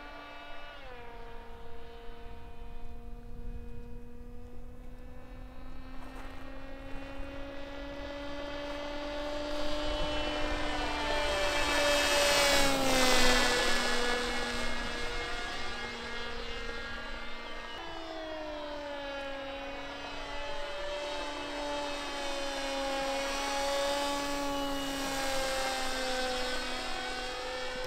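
Electric RC plane (X-UAV Talon with a Sunnysky 3525 880kv brushless motor and 12x6 propeller) flying past overhead: a steady propeller drone with overtones. It grows loudest and drops in pitch as it passes about halfway through, and its pitch steps up suddenly a few seconds later.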